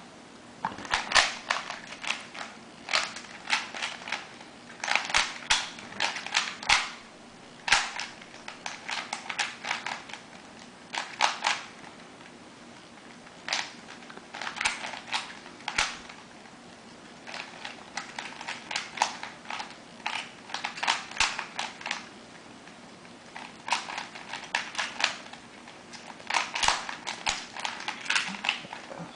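Rubik's Cube being turned fast during a speedsolve: the plastic layers click in quick rattling bursts, broken by brief pauses where the solver stops to look at the cube.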